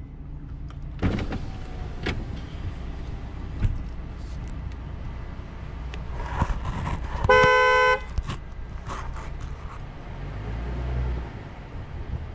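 Vehicle horn honked once, a single blast of about half a second some seven seconds in, sounded to get a moose out of the road.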